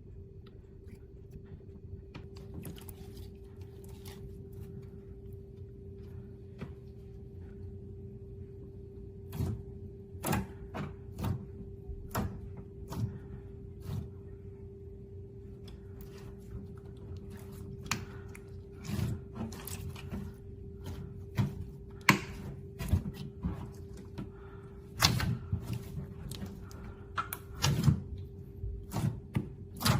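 Clear slime being squeezed and poked by hand, giving irregular sticky clicks and air-bubble pops that come more often and louder from about a third of the way in, over a steady low hum.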